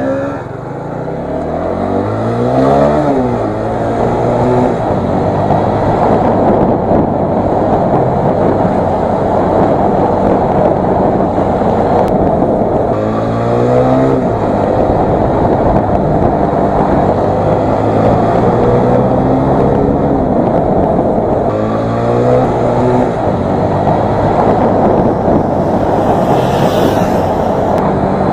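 Bajaj Pulsar 200's single-cylinder engine accelerating, heard from the rider's seat: the revs climb and drop back several times as the gears are shifted up, between stretches of steady engine drone, with heavy wind rush over the microphone.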